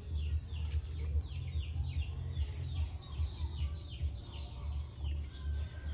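A bird calling in a fast, regular series of short falling chirps, about two to three a second, over a loud, pulsing low rumble.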